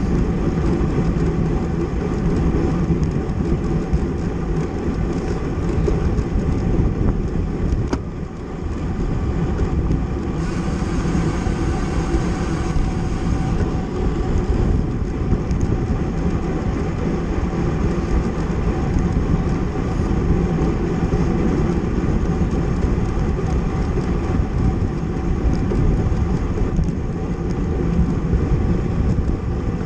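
Steady wind and road noise from a racing bicycle ridden at speed in a criterium, with a brief higher hiss about ten seconds in that lasts about three seconds.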